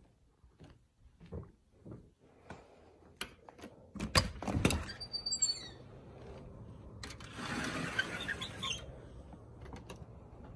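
Soft footsteps, then a door being opened onto the deck: a sharp knock about four seconds in, a short high squeak, and a scraping noise lasting about two seconds as it moves.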